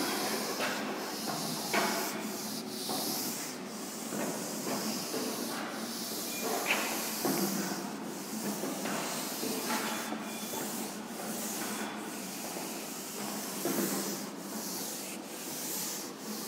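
Chalkboard duster rubbing across a green chalkboard in repeated back-and-forth strokes, wiping off chalk writing.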